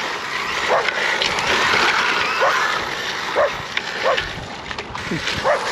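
A dog barking in short yips, about five times roughly a second apart, over a steady rushing noise.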